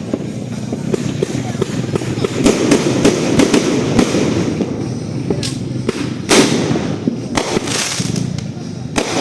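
Multi-shot fireworks cake (a 36-shot 'Dazzle Colourful') firing in succession, with a dense stretch of crackling a few seconds in and several loud separate bangs in the second half.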